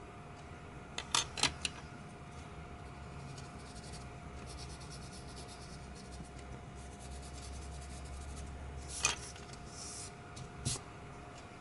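Black drawing pen stroking and rubbing on paper, a soft scratching hiss, broken by a few sharp clicks and taps, the first cluster about a second in and two more near the end.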